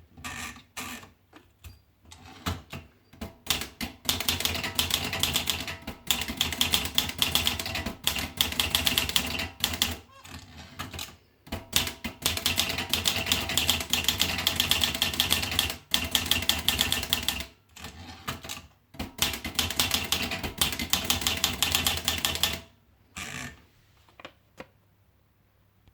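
Olivetti Lettera 32 portable manual typewriter, built with Lettera 31 internals, being typed on. Keys strike in fast runs of several seconds with short pauses between, and a few single strokes near the end.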